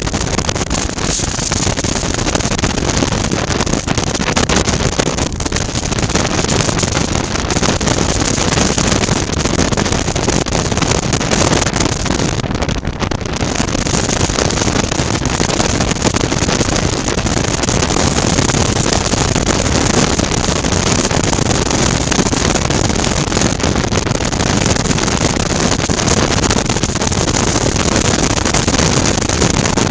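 Wind rushing over a helmet-mounted microphone, with the 2019 Suzuki V-Strom 650's V-twin engine running underneath at a steady road cruise. The sound eases briefly about twelve seconds in.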